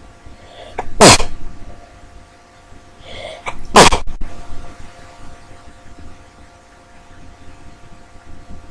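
A woman sneezing twice, about three seconds apart, each sneeze preceded by a short in-breath. The sneezes come from a head cold that has left her stuffy.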